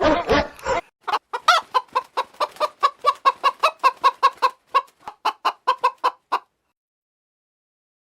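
A dog's barking cuts off in the first second, then a hen clucks in a fast run of short calls, about four or five a second, which stops abruptly a little after six seconds in.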